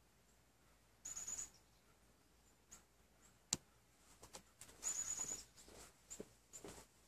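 Someone blowing on a smouldering ember in ash-treated cotton fabric tinder to aerate it and grow it toward flame: two short breathy blows, about a second in and again about five seconds in. A sharp click comes between them, and there is light handling of the fabric afterwards.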